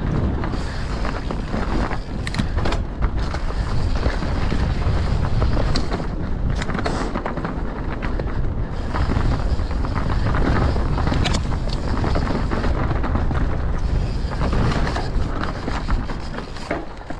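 Wind buffeting the microphone over a steady low rumble of a mountain bike rolling along a trail, with scattered sharp clicks and rattles from the bike.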